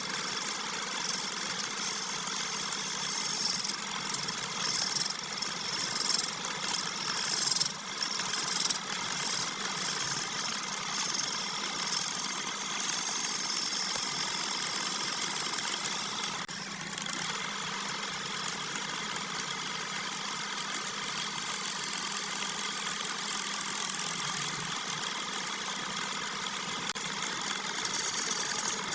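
Wood lathe running with a turning tool cutting into the spinning wood: a hissing, scraping cut that surges unevenly through the first dozen seconds, dips briefly about two-thirds of the way in, then runs on steadily.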